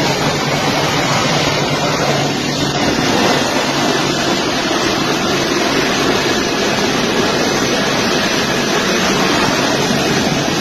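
Loud, steady running noise of a large military transport jet's engines close by, with a low hum underneath.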